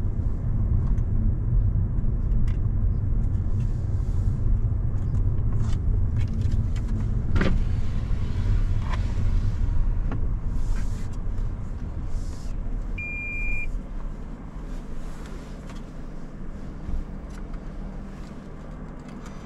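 Car on the move: a steady low road and engine rumble that grows quieter in the second half, with a short electronic beep about thirteen seconds in.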